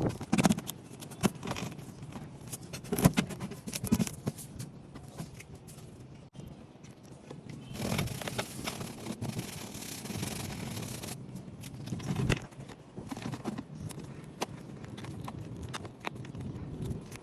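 Hand work on an antique box: scattered clicks and knocks of tools and parts being handled, with a steady scraping noise from about 8 to 11 seconds in.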